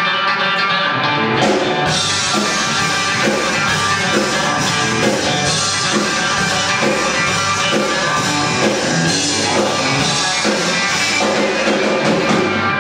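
Live band instrumental: electric guitar leading over bass guitar and drum kit. The cymbals and drums fill in fully about two seconds in.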